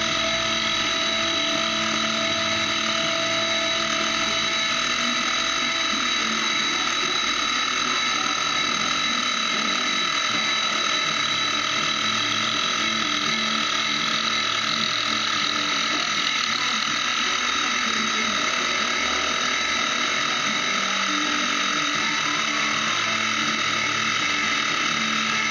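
Milling machine running with its end mill cutting into metal knife bolsters: a steady machine whine made of several held tones, mostly high-pitched, at an even level throughout.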